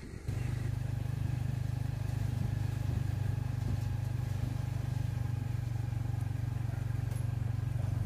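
An engine running at a steady speed, a low even hum that cuts in suddenly a moment in.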